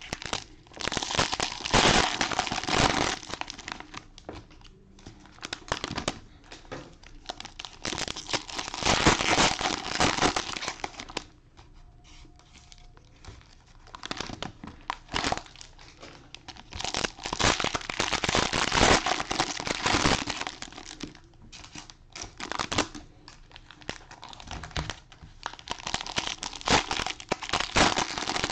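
Cellophane wrappers of trading-card packs crinkling and tearing as hands open them, in bursts of a second to a few seconds with short pauses between.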